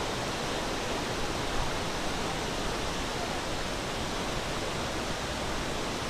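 Steady rushing of a waterfall, an even noise with no breaks.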